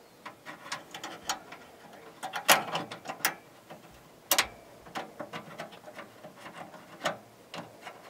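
Irregular small metal clicks and scrapes as Torx screws are worked back and forth to start them into the sheet-metal hard-drive cage, with two sharper clicks about two and a half and four seconds in.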